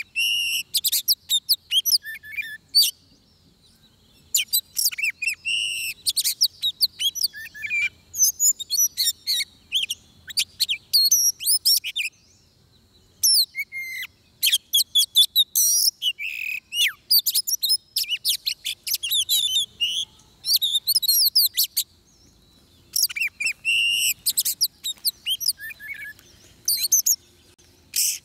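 Oriental magpie-robin singing: bouts of rapid, varied whistles and trills broken by brief pauses, the call of a decoy bird used to lure wild magpie-robins.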